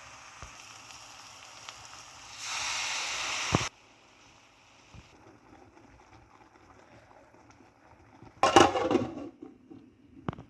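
Cooking sounds from a pot of crab curry: a short stretch of hissing that cuts off suddenly. Near the end comes a louder noisy burst and a couple of sharp clicks.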